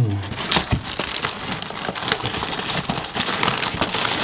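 Brown kraft packing paper rustling and crackling steadily as hands rummage in a cardboard box, with many small crinkles and clicks.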